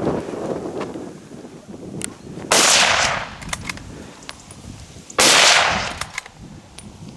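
Two gunshots from a hunting gun, about two and a half seconds apart, each a sharp report that rolls away over about half a second. Wind rumbles on the microphone in the first second.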